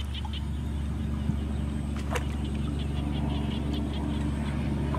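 A steady low engine drone, with a rapid high chirping pulse of about five or six a second coming and going over it.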